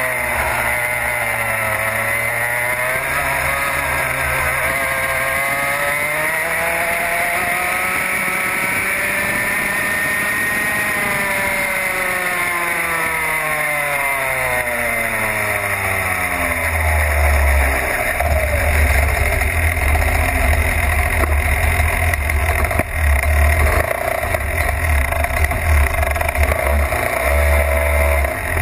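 Racing kart engine heard from on board, its revs climbing to a peak about ten seconds in and then dropping away. From about two-thirds through it runs at low revs with a heavy, uneven low rumble as the kart rolls slowly.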